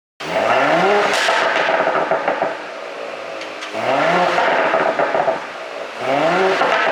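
2019 Porsche Cayenne's 3.0-litre turbocharged V6 revved three times, each rev rising quickly and falling back with pops and crackles from the exhaust on the overrun, the effect of an ECU pop-and-crackle tune.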